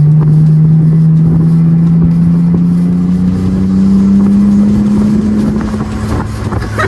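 Mitsubishi Eclipse engine pulling under acceleration through an aftermarket Invidia N1 cat-back exhaust. One loud, steady note rises slowly in pitch for about five seconds, then holds level.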